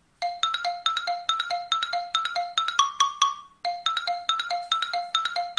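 Background music: a bright mallet-percussion tune, marimba or xylophone style, of short struck notes at about four a second, with a brief break about three and a half seconds in.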